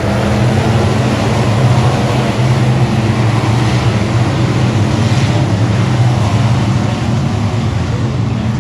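Dirt-track race car engine running hard at a steady pitch, with a hiss of wind and tyre noise over it.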